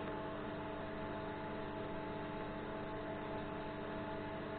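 TIG welding arc burning steadily: an even hiss with a low, steady hum under it.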